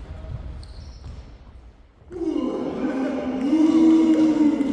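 A person's voice calling out in one long, drawn-out shout starting about two seconds in and held for about two and a half seconds. Before it, only faint short high squeaks.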